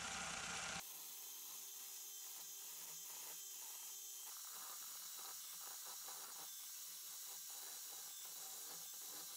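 Large cordless hammer drill boring a long masonry bit into a thick stone-and-lime wall, heard faintly as a steady hum with fine rattling. The sound suddenly thins about a second in.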